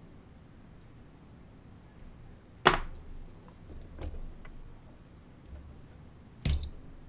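Three sharp clicks or taps of small hand tools being handled at a repair bench, a second or two apart, the first the loudest and the last with a brief high metallic ring.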